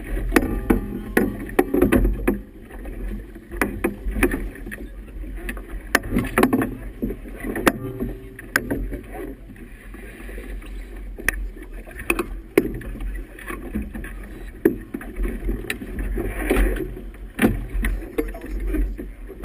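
Choppy river water slapping and splashing against a boat's hull, with many irregular sharp knocks over a steady low rumble.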